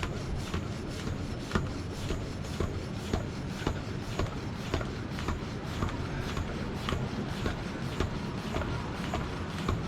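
Bicycle pump being worked in steady strokes, about two a second, inflating a tubeless road tyre after the valve core has been put back.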